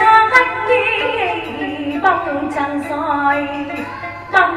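A woman singing ca trù, drawing out long vowels with a wavering, ornamented melody and holding a steady note through the middle.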